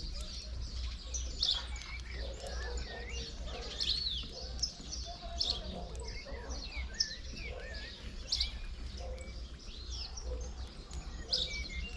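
Many small birds chirping and calling at once, dense overlapping short chirps and quick whistled notes from a feeding flock, over a steady low rumble.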